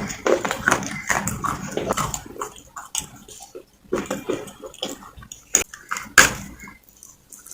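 Close-up chewing and crunching of pieces of a soft clay gullak (piggy bank) with a white paste: irregular wet crunches and crackles with mouth noises.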